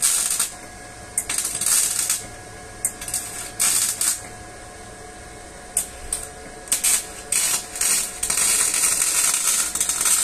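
MIG welding arc crackling in a string of short tack welds on sheet steel, each about half a second, then one longer continuous run of crackle near the end.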